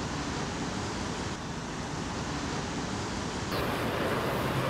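Steady street noise, a hiss of traffic, which grows louder about three and a half seconds in.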